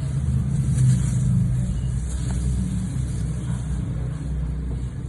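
A motor vehicle running: a steady low rumble with a hum under it and no sharp events.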